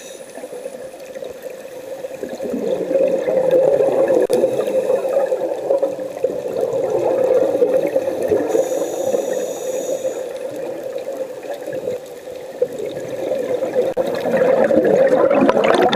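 Scuba regulator exhaust bubbles gurgling and rushing past the underwater camera. The sound grows louder about three seconds in, eases around twelve seconds and swells again near the end.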